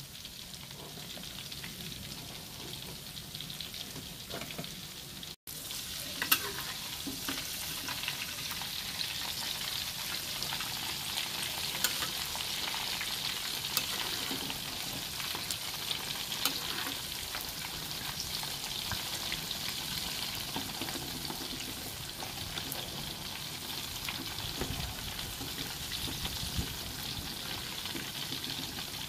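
Tempe slices deep-frying in hot oil in a wok: a steady sizzle with scattered small pops and crackles as they fry toward golden brown. The sound briefly cuts out about five seconds in, then comes back slightly louder.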